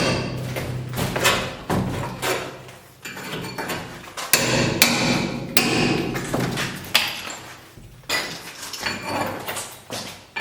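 Hammer blows on brick and masonry, a dozen or so sharp, irregularly spaced strikes, each with a brief ringing tail, as a brick fireplace is chipped out.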